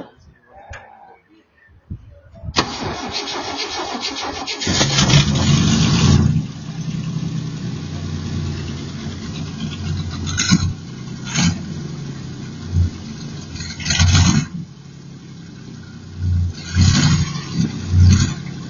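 IKA Torino's straight-six engine starting up about two and a half seconds in, revved hard just after it catches, then idling with several short throttle blips.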